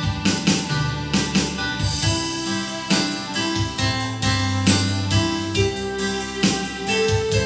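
Electronic home keyboard playing a song: held melody and chord notes over a bass line, with a regular beat of short hits.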